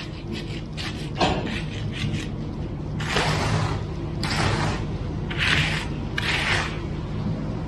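A hand tool scraping through wet concrete in repeated strokes, about one a second, as fresh concrete is spread around a floor drain. The steady low drone of the concrete pump truck's engine runs underneath.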